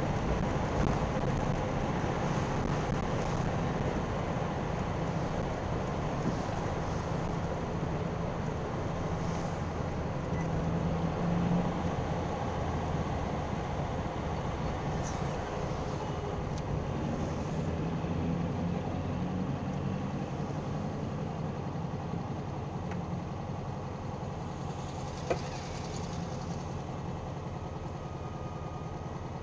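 Air-cooled Volkswagen flat-four engine and road noise heard from inside the car as it slows from town speed to a stop, then settles into idling. A single sharp click sounds near the end.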